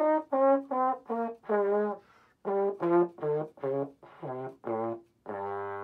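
Valve trombone playing a run of short detached notes, about three a second, from a scale-and-chord étude in A-flat. After a brief pause about two seconds in, the notes step down in pitch into a long held low note near the end.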